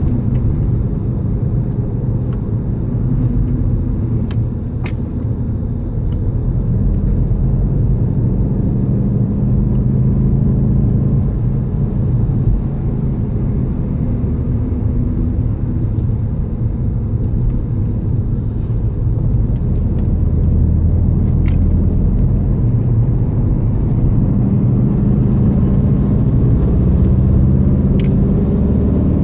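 Inside-cabin drone of a stock 2015 VW Golf 7 GTD at speed: its 2.0-litre four-cylinder turbodiesel running steadily under tyre and road noise. A few faint clicks come through.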